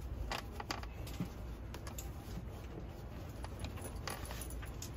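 Light, irregular plastic clicks and taps as gloved hands handle and work loose the air intake duct on the engine, over a steady low rumble.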